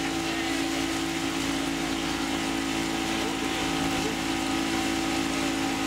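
A boat's engine running steadily, an even drone with a constant hum.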